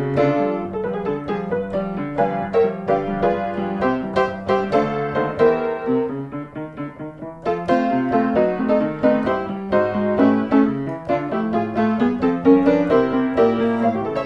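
Background piano music: a continuous run of notes that softens briefly about halfway through.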